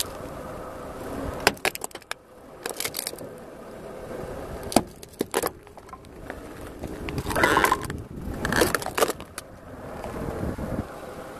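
Two LED light bulbs crushed under a slowly rolling car tyre: their plastic domes and housings crack and snap in a string of sharp cracks, with denser crunching about seven to nine seconds in, over a steady low rumble from the car.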